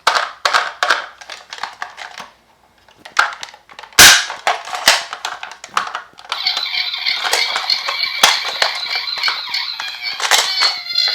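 Die-cast miniature toy cars clicking and clattering against each other and against the slope and box, with one sharp knock about four seconds in. About six seconds in, a steady high-pitched electronic sound joins the clatter.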